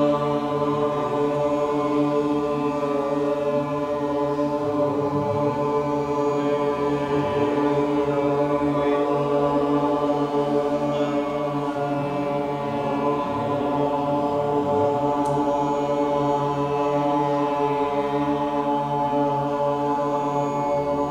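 A group chanting a long, unbroken drone together, many voices blending into one steady chord of sustained tones.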